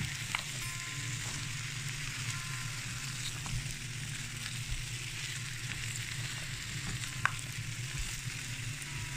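Sliced bottle gourd sizzling in hot oil and spice paste in a non-stick pan as it is stirred with a spatula, over a steady low hum. A couple of sharp taps of the spatula against the pan come about half a second in and again a little past seven seconds in.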